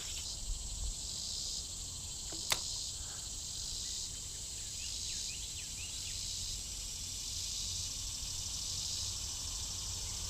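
Outdoor insect chorus, a steady high-pitched buzz that swells and fades about once a second. There is one sharp click about two and a half seconds in, and a few faint chirps midway.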